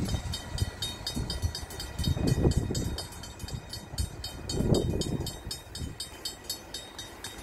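Steam locomotive chuffing as it pulls its train away, the rapid exhaust beats fading as it draws off into the distance.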